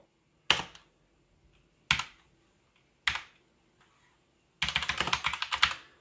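Mechanical gaming keyboard keys clicking: three single keystrokes about a second apart, then a quick run of typing near the end.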